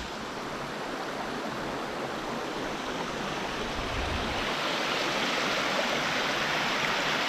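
Mountain stream water rushing over rocks, a steady hiss that grows gradually louder.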